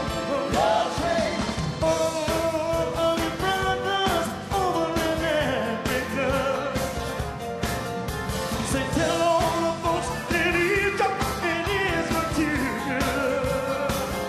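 Male singer performing live with an R&B band of electric guitar, bass guitar and drums, the drums keeping a steady beat.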